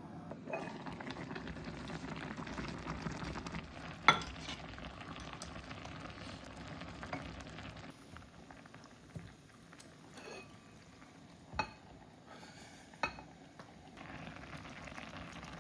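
A pot of dumpling hot pot bubbling and simmering, with a few sharp utensil clinks: the loudest about four seconds in, and two more later on.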